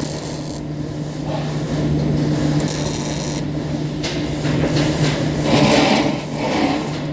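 Arc welding on galvanized iron: irregular crackling and sizzling over a steady low hum from the machine, with the crackle flaring up several times.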